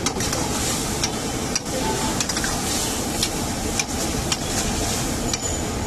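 Steel ladle scraping and clinking against a metal wok as thick Manchurian gravy is stirred: irregular sharp clicks over a steady background din.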